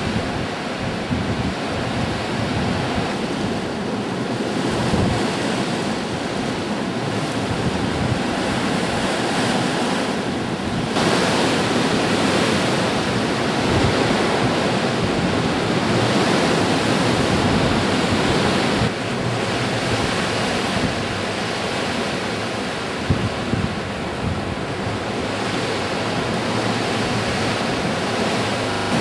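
Blizzard wind blowing in a steady rush, buffeting the microphone. It strengthens into a gust about eleven seconds in and eases back after about eight seconds.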